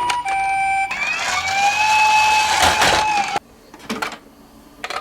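Tinny electronic sirens from toy emergency-vehicle minicars: a short steady two-tone note, then a slow wail that rises and falls. The siren cuts off about three and a half seconds in, followed by a few light clicks.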